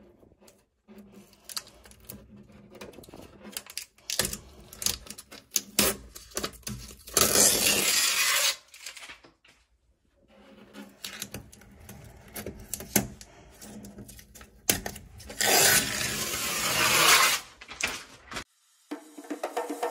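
A hand rubbing and brushing across a bare, rough particle-board closet shelf, with scattered light knocks and taps. Two longer, louder scraping rubs come about seven seconds in and again around fifteen to seventeen seconds in.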